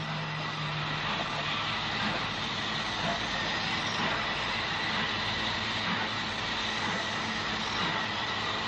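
Train running on the rails: a steady noise of wheels and rolling stock, without a break.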